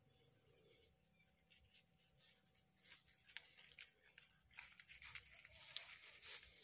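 Near silence: a few faint scattered ticks and rustles, more of them in the second half, over a faint steady high whine.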